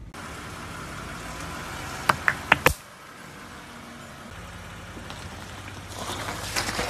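Four sharp pops in quick succession about two seconds in, as a car tire bursts Tide laundry pods. A car engine then runs low and steady, and near the end there is a crisp crackling as the tire crushes wet floral foam bricks.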